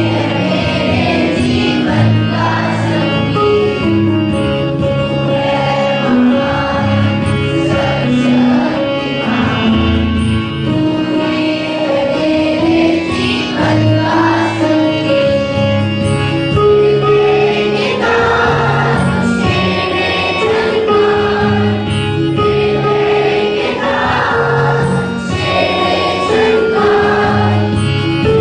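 A choir of school students singing a prayer song together with music under them, the notes held and flowing without a break.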